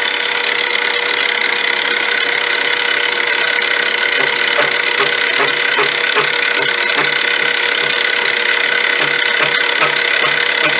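Milling machine running with a steady whine, its cutter cutting cooling fins into a carburettor spacer plate. From about four seconds in a regular low pulse comes in, roughly twice a second.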